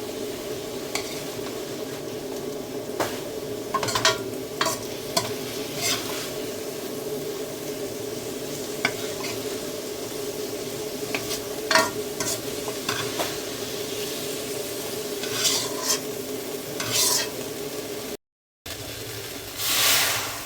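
Food sizzling as it is stir-fried in a pan, with a steady frying hiss and frequent sharp clinks and scrapes of a utensil against the pan. The sound cuts out briefly near the end.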